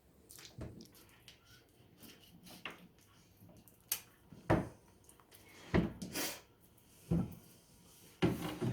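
Scattered knocks and clunks, about five in the second half, as things are set down and handled in a small room.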